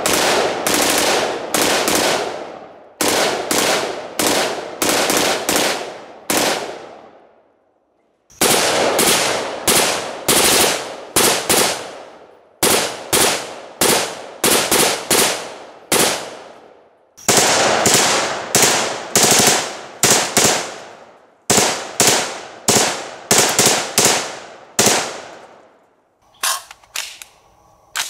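Full-auto Bushmaster AR-15 in 5.56 firing burst after burst, each trailing off in echo, with two breaks of about a second between long runs of fire.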